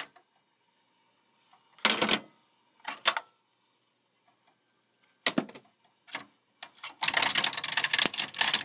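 Scattered sharp clicks and clacks of plastic and metal parts being handled inside an open desktop computer case. About seven seconds in, this turns into a continuous rattling and scraping.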